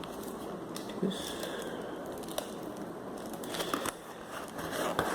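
Plastic packaging crinkling and tearing as a small selfie-stick package is opened by hand, with scattered sharp clicks and rustles.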